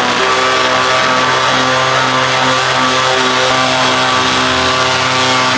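Electric sander running steadily with 60-grit paper, stripping primer from pine trim: a steady motor hum over a gritty hiss.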